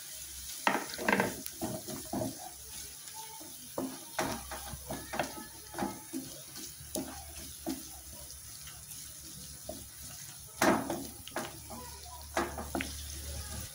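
Wooden spatula stirring, scraping and knocking irregularly against a frying pan as onion, green chillies and curry leaves sauté in oil, over a steady sizzle.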